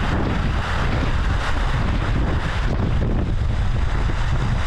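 Strong wind buffeting the microphone as a steady low rumble over the rush of a stream tumbling down a small waterfall and over rocks.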